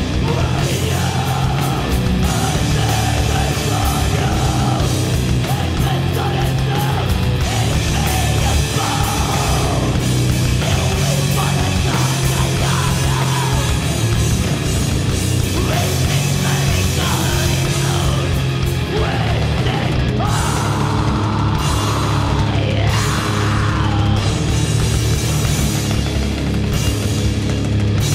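Heavy rock band playing loud and steady, with distorted guitars, bass and a drum kit.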